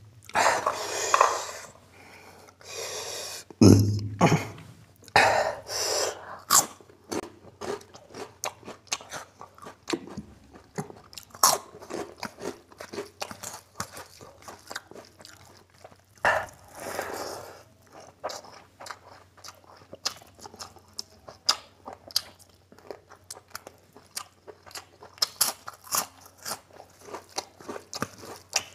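Close-miked mouth sounds of a man eating rice and mutton curry by hand: wet chewing and smacking, with crunchy bites mixed in, in an irregular run of clicks.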